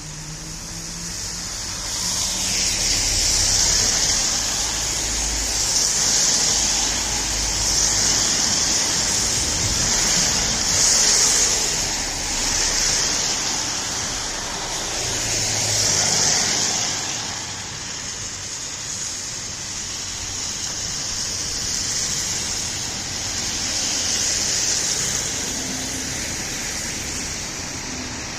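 Road traffic: vehicles passing one after another, a steady tyre hiss that swells and fades every few seconds, with a low engine hum under some of the passes.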